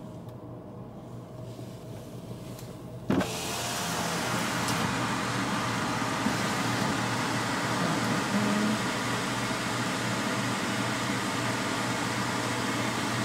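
A car's power window opening with a click about three seconds in, after which the steady outside noise of car engines comes in louder than the quiet cabin hum before it.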